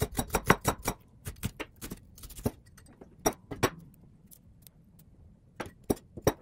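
Kitchen knife slicing an onion on a bamboo cutting board: a quick run of sharp knocks of the blade on the board, a few more, then a pause before another short run of knocks near the end.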